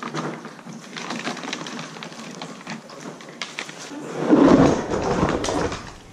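Clicks and rustling of parts being handled and unpacked from a box, with a louder rumbling handling noise between about four and six seconds in.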